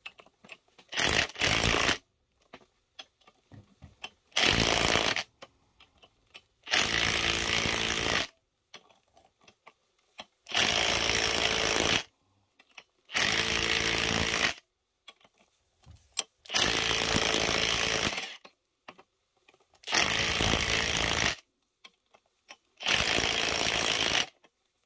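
Cordless impact driver hammering in short runs of a second or so, about every three seconds, with a few light clicks between. It is running the two bolts of a supercharger pulley puller in, alternating a little at a time, to press the pulley off the snout.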